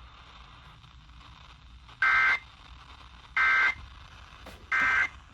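Emergency Alert System end-of-message data code: three short, identical bursts of two-tone digital warble, a little over a second apart, marking the close of the broadcast flood warning.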